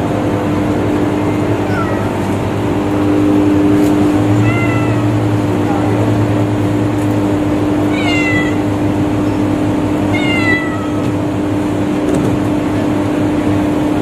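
A cat meowing: four short, high-pitched calls a few seconds apart, the clearest two about eight and ten seconds in, over a steady low hum.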